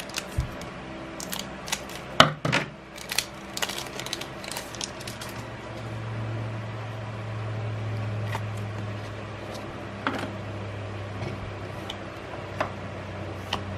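Magic: The Gathering cards being handled: light clicks and snaps as cards are set into a plastic sorting tray and picked up. The clicks are busiest in the first few seconds, and a steady low hum comes in from about six seconds.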